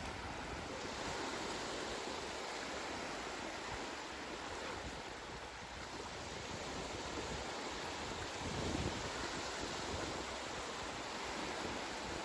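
Steady outdoor rushing noise, with wind buffeting the microphone in low gusts, strongest about eight to nine seconds in.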